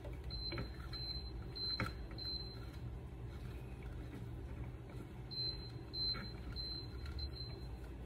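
Faint clicks and rubbing as a plastic twist-on wire connector is turned by hand onto the wires, over a steady low hum. Two runs of four short, faint high beeps, evenly spaced, sound in the first and second halves.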